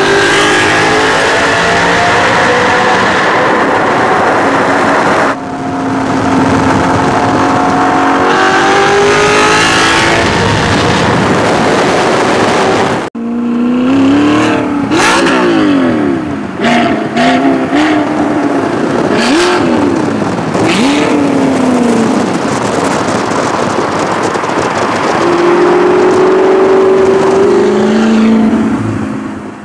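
Audi R8's 4.2-litre V8 through an Armytrix valved exhaust, revving hard and climbing in pitch as it accelerates in a tunnel. About halfway through the sound cuts to the car on an open road, blipping and sweeping the revs up and down with sharp crackles, then pulling steadily again near the end.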